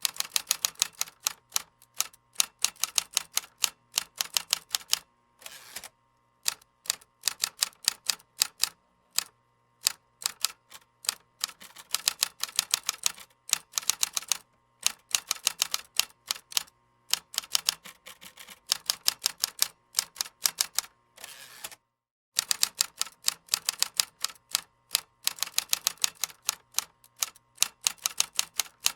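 Typing on a computer keyboard: fast runs of key clicks, several a second, broken now and then by short pauses.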